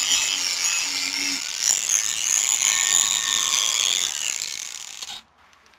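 Drill-mounted sanding pad spinning and wet-sanding a clouded plastic headlight lens: a steady motor whir with sandpaper scratching. It eases off about four seconds in and stops abruptly just after five seconds.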